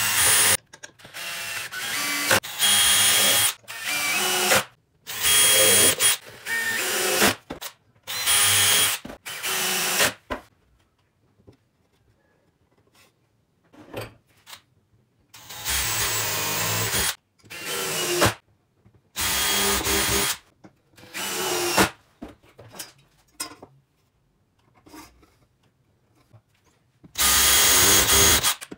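Cordless drill running in repeated short bursts of half a second to two seconds, boring and driving into wooden boards, with pauses between bursts.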